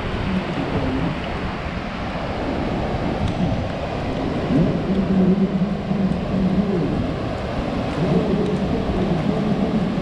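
Ocean surf breaking and washing up a sandy beach: a steady rushing noise that swells and eases with the waves.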